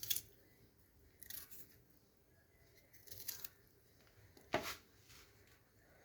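Garlic cloves being broken apart and peeled: a handful of short, crisp crackles and tears of the papery skin, the loudest a little past halfway.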